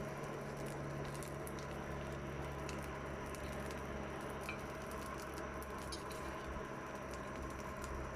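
Steady hiss and low rumble of a forge running, with a hum and faint scattered crackles over it.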